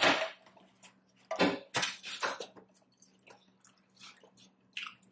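Eating sounds: a string of short, separate wet smacks and clicks from chewing food.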